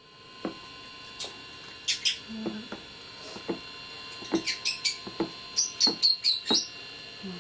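Spoon stirring and scraping thick pasteles masa in a large bowl: a string of irregular knocks and squeaky scrapes, busier in the second half, over a steady faint electrical hum.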